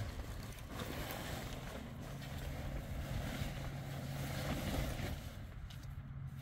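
Wind buffeting the microphone with a low rumble, over the rustle of a nylon pop-up tent's fabric as it is gripped and turned around by hand.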